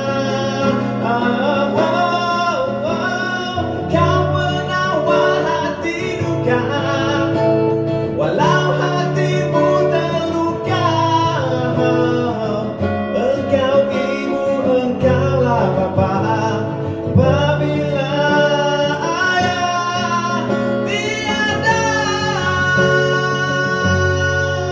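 A man singing to his own acoustic guitar, strummed chords changing every couple of seconds under a held, swooping vocal line.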